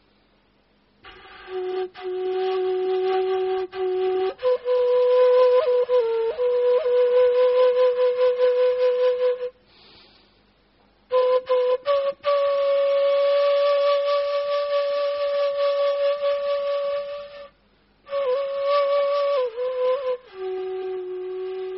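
Flute playing slow, long held notes that step between a few pitches, with two short breaks: a low note, a higher one held for several seconds, then back down to the low note near the end.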